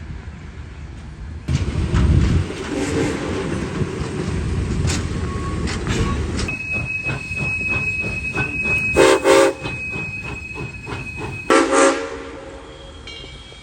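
Southern Railway 630's Nathan six-chime steam whistle sounding short chord blasts, loudest about nine seconds in and again near the end. Beneath it are the rumble and a fast, even rhythmic beat from the moving steam locomotive and train, with a steady high tone during the middle stretch.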